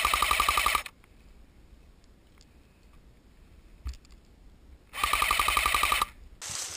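Airsoft AK47 electric rifle firing full-auto: a burst of about a second at the start, then a second burst about five seconds later, each a rapid, even run of mechanical shots. A rustling noise follows near the end.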